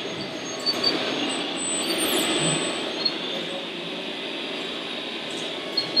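Radio-controlled scale articulated dump truck driving slowly over gravel: steady running noise with a few short high squeaks, one about a second in, one about three seconds in and two near the end.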